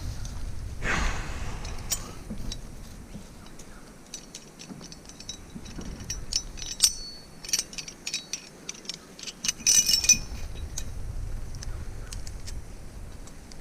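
Small metal clinks and jingles, scattered at first and then a quick cluster about ten seconds in, with a brief rustle about a second in.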